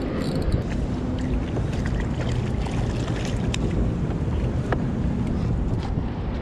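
Steady wind rumbling on the microphone over choppy water lapping at a small boat's hull, with a couple of sharp faint clicks midway.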